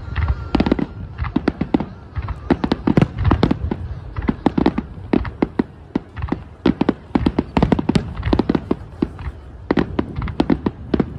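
Aerial firework shells bursting in quick succession: a dense string of sharp bangs and crackles, several a second, over a low rumble.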